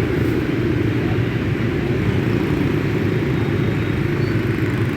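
Steady rumble of city street traffic passing close by.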